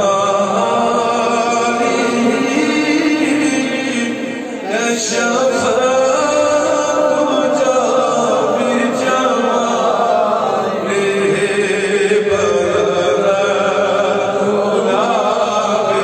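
A voice chanting melodically in long, held notes that bend and waver, with a brief break about four and a half seconds in.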